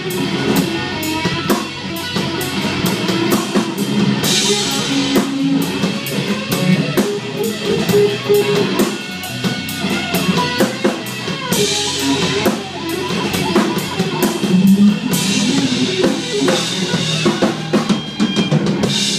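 Live blues-rock trio playing an instrumental passage: distorted electric guitar over electric bass and a drum kit keeping a steady beat, with cymbals washing over the top a few times.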